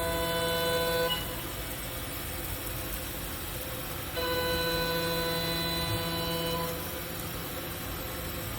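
Haas gantry CNC router running: a steady whine of several tones sounds through the first second and again from about four to nearly seven seconds in, over a constant machine hum.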